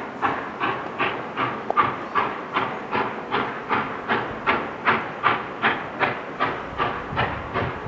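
Norfolk & Western 611, a J-class 4-8-4 steam locomotive, exhausting in steady, evenly spaced chuffs, about two and a half beats a second.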